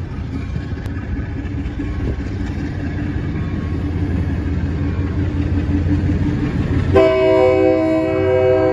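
GE B23-7 diesel locomotive approaching, its engine rumble slowly growing louder. About seven seconds in, its air horn starts blowing a steady chord of several notes, sounding for the road crossing.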